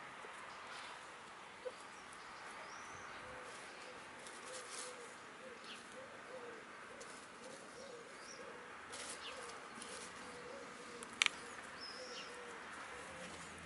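Brown laying hens murmuring softly in a low, wavering, drawn-out croon as they forage, with small birds chirping now and then above it. A single sharp click about eleven seconds in.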